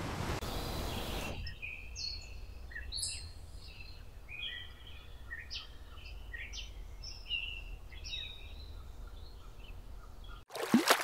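Songbirds chirping and whistling, many short calls of varied pitch over a faint low rumble. A surf-like noise fades out about a second and a half in. Near the end a loud burst of splashing water cuts in suddenly.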